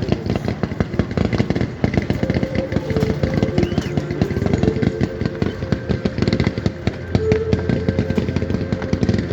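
Fireworks going off in a rapid, unbroken string of crackling pops, starting suddenly and continuing without pause.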